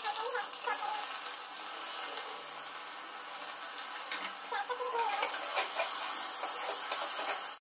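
Chopped onions sizzling steadily in hot mustard oil in an aluminium pressure cooker as they begin to fry, stirred with a spoon near the end.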